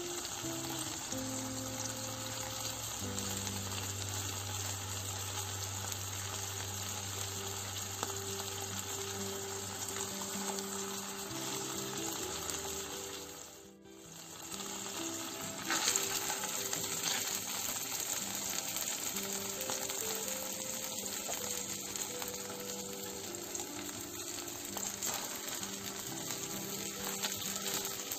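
A ground-meat burger patty sizzling as it fries in a ceramic nonstick pan, a steady crackling hiss. The sizzle drops out briefly about halfway and comes back louder.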